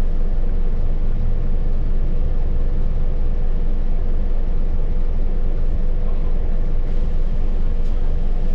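Scania K280UB city bus's rear-mounted diesel engine running steadily as heard on board: a constant low drone with a steady whine held at one pitch.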